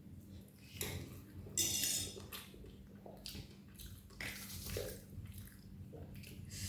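Faint eating sounds while eating very spicy noodles: chewing, with a few short hissing breaths spaced a second or more apart.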